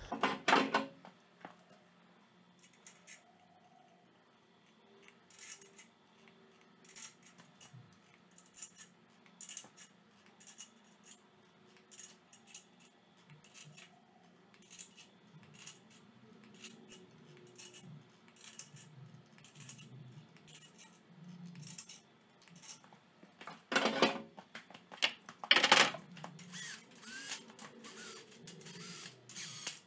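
Ratcheting torque wrench clicking in short runs, about once a second, as it tightens the main bearing cap bolts on a small block Chevy, with two louder metal knocks near the end.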